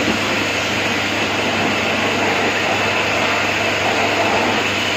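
Pressure washer running steadily, its water jet spraying onto a motorcycle, with a constant motor hum under the hiss of the spray.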